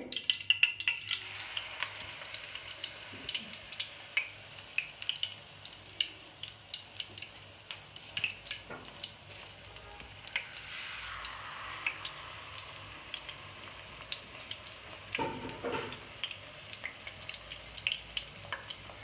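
Batter-coated egg rolls deep-frying in hot oil: a steady sizzle peppered with frequent crackles and pops. The hissing grows louder about ten seconds in, as another roll is lowered into the oil.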